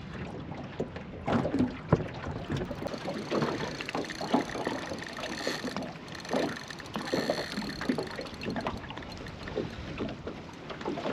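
Water lapping against the hull of a small aluminium boat, with scattered irregular knocks and rustles.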